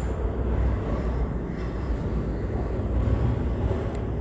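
Fiat 480 tractor's diesel engine idling steadily, a low even rumble.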